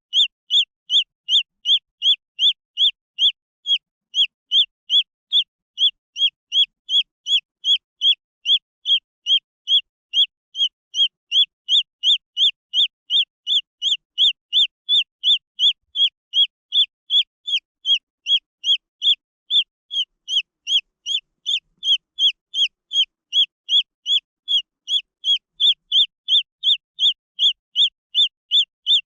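Green junglefowl chicks peeping: short high-pitched calls repeated steadily, a little over two a second, without a break.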